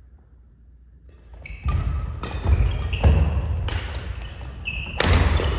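Badminton rally: a quick series of sharp racket hits on the shuttlecock, roughly every half second, starting about a second and a half in, mixed with sneakers squeaking on the wooden court. The hits echo in the gym hall.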